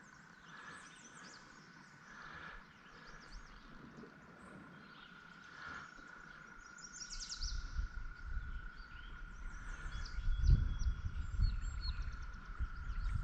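Small birds chirping over a steady, thin, high insect drone. A low rumble on the microphone builds in the second half.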